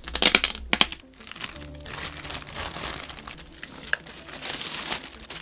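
Clear plastic wrap crinkling as it is pulled off a cardboard box, densest and loudest in the first second, then softer rustling as the box slides out of the plastic bag.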